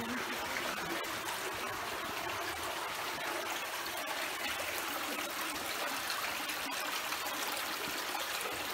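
Flowing water running steadily with an even rushing sound.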